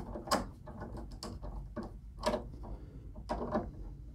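Small screwdriver turning the jack-screw bolts of a DB9 serial gender changer snug into the transceiver's rear port: irregular small metallic clicks and scrapes.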